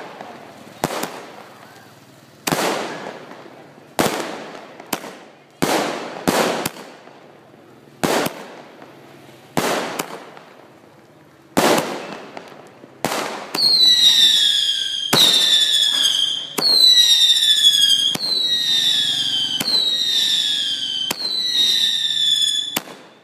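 Fireworks going off: single sharp bangs, each with a fading echo, about every second or so. About two-thirds of the way through they give way to a quick run of shells that each sound a falling whistle, about six in a row, overlapping, with bangs between them.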